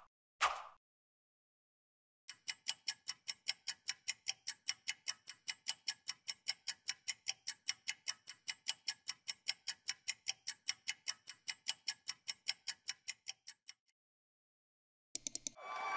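Clock-tick countdown timer sound effect ticking steadily, about four ticks a second, for around eleven seconds, then stopping as the timer reaches zero. A louder burst of sound starts near the end.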